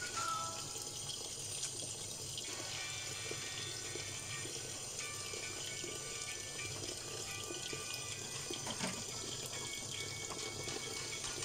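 Tap water running steadily into a basin of water full of broccoli florets and green beans being rinsed.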